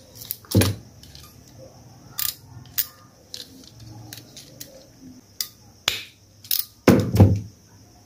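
Scattered sharp clicks and snips of an RJ45 crimping tool's cutter and the small parts of an RJ45 connector and load bar being handled, while the excess conductor ends of a Cat7 cable are trimmed. Louder knocks come about half a second in and around seven seconds.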